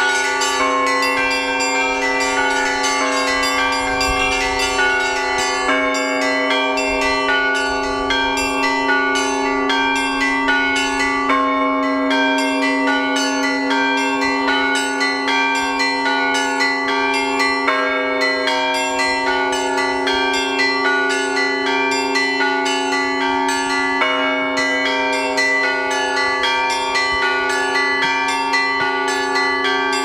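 Russian Orthodox church bell ringing from a belfry: many bells struck in a fast, unbroken peal, small bells chiming rapidly over the long-ringing hum of larger bells.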